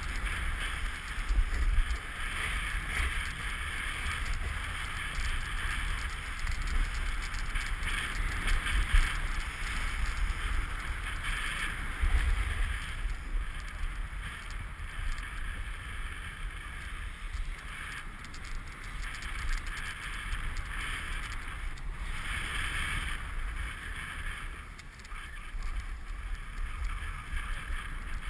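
Snowboard scraping and hissing over bumpy, cut-up piste snow, the hiss swelling and easing, with wind noise on the camera microphone.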